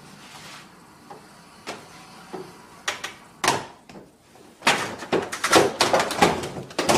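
Pet door flap knocking and clattering as animals push through it: a few separate knocks, then a quick run of loud bangs in the second half as the flap swings back and forth.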